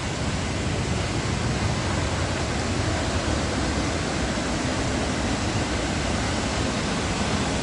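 Steady rushing of a river in flood, brown floodwater pouring fast and overflowing its banks.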